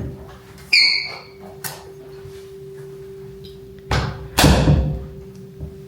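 Closet being handled: a short ringing squeak about a second in, a click, then two heavier knocks a little before the middle, over a steady low hum.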